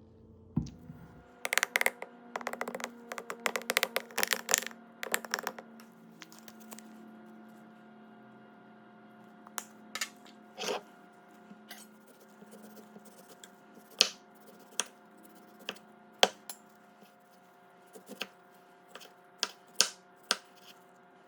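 Kitchen utensils and containers clicking and clinking as remedy ingredients are handled: a quick flurry of clinks in the first few seconds, then scattered single clicks, over a faint steady hum.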